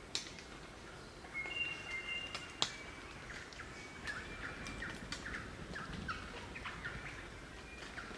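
Crimson rosellas calling: a few held, whistled notes about a second and a half in, then a run of short chattering notes. Two sharp clicks stand out, one at the very start and one near the middle.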